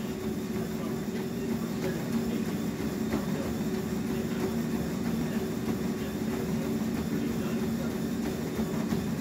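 Treadmill running: the steady hum of the treadmill's motor and belt, with the runner's footfalls striking the moving belt.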